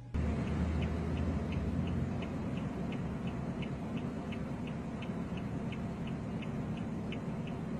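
Steady low road and engine noise inside a moving car, with a light, regular ticking about three times a second.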